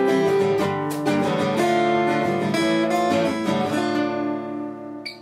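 Steel-string acoustic guitar played fingerstyle, plucking melody notes over chords, then a final chord left to ring and fade out. A small click comes just before the end.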